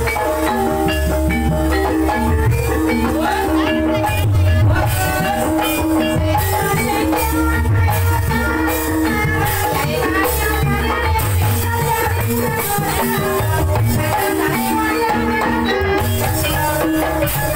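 Ebeg gamelan music: tuned percussion playing quick repeating note patterns over drums, with a rattling metallic shimmer on top.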